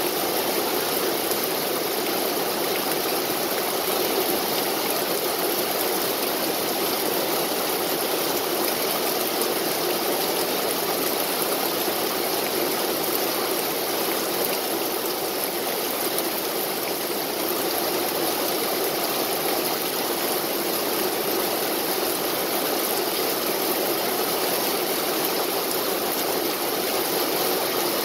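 Steady rain falling on tree leaves and grass, an even hiss that holds without a break.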